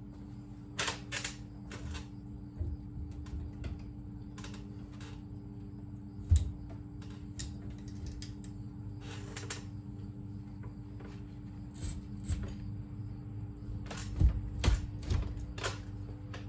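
Irregular clicks and knocks from a 48V battery pack of cylindrical cells in plastic holders being handled and fitted into its wall rack, with one louder thump about six seconds in and a run of clicks near the end. A steady low hum underneath.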